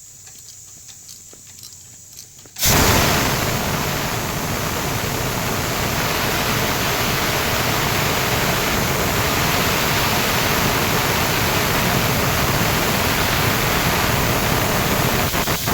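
Air compressor's blow-off valve at the bottom opening, releasing compressed air in a loud, steady hiss that starts suddenly about three seconds in, after the compressor has been shut off.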